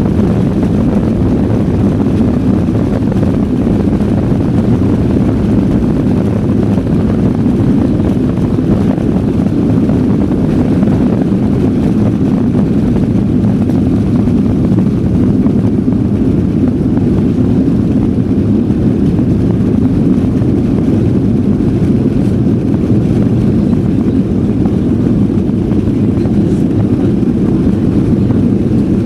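Boeing 737-800's CFM56-7B jet engines at takeoff and climb thrust, heard inside the cabin behind the wing as a loud, steady low rumble as the aircraft lifts off and climbs.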